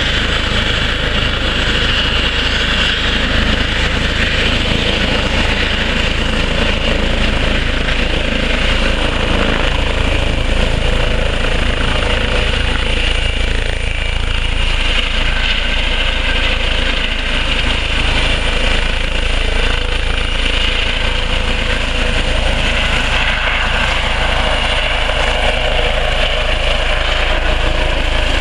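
Eurocopter EC135 air ambulance helicopter running at full power as it lifts off and hovers: twin turbine engines and main rotor with a steady high whine over a deep, continuous rumble.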